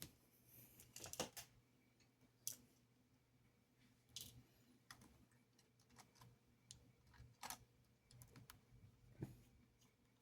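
Faint, irregular light clicks and taps of small hard objects, about one every second or two, against near silence.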